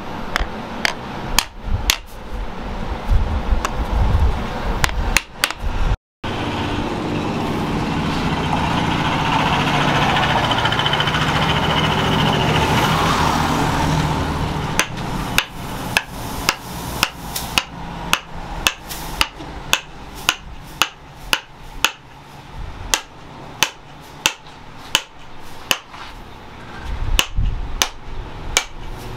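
Wooden sickle handle knocked down again and again on a steel anvil to drive the hot tang into it, a sharp knock about one and a half times a second. A stretch of steady hiss with no knocks comes before the regular knocking.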